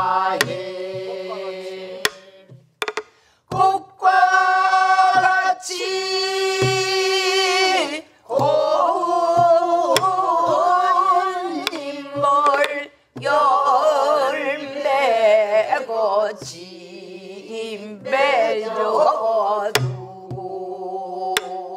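Korean Namdo folk song: a woman sings long, wavering phrases with the group singing along, and a sori-buk barrel drum beaten with a stick gives sparse, irregular strokes. There are short breaks between the phrases.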